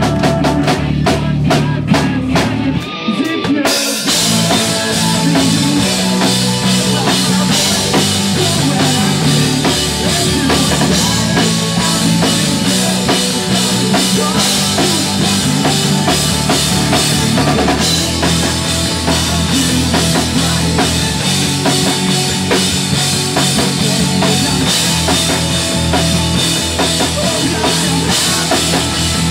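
Pop-punk band playing live: drums, bass and guitars with a steady beat. Around three seconds in the music thins briefly, then the full band comes back in with cymbals crashing.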